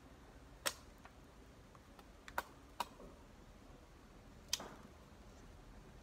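A large chopping knife striking a thin wooden stick as it is trimmed: four sharp chops, unevenly spaced, with the last a little after the middle.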